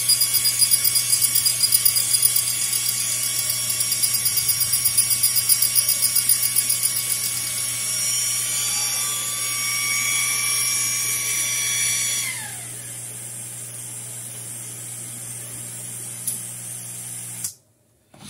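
xTool D1 Pro 40 W diode laser engraver at work over the steady hum of its exhaust fan and air assist. The gantry motors whir in a fast, pulsing rhythm through the first several seconds. About twelve seconds in, a whine drops in pitch and fades as a motor spins down, leaving a lower steady hum that cuts off suddenly near the end.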